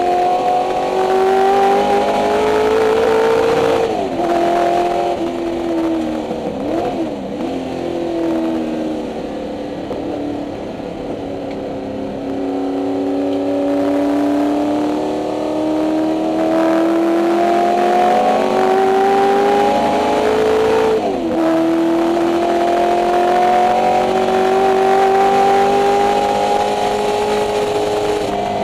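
Ford 289 Windsor V8 of a 1964 Mustang race car at racing speed, heard from inside the cabin. The engine note drops sharply about four seconds in and falls away, with a brief up-and-down wobble in pitch a few seconds later. It then climbs steadily under full throttle for over ten seconds, drops sharply at a gear change about three-quarters of the way through, and climbs again.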